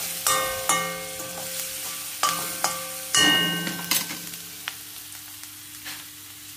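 Metal spatula knocking and scraping around an aluminium kadhai while stirring onions and spice masala roasting in oil; each knock sets the pan ringing briefly. The knocks come thick for about four seconds, then thin out, leaving a soft sizzle.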